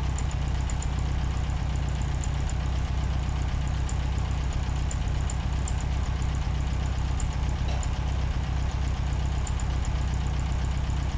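A steady, unbroken low hum, with faint scattered high ticks over it.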